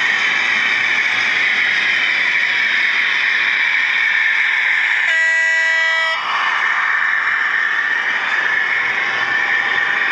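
OO gauge model diesel locomotive running past hauling a long train of hopper wagons, with a steady running noise. About five seconds in, a horn sounds once on a single steady note for about a second.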